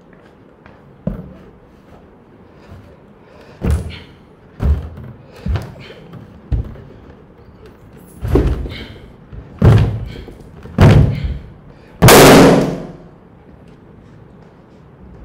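Feet in sneakers stomping on an inflated latex balloon: about eight dull thuds, the later ones louder, then the balloon bursts with a loud pop about twelve seconds in.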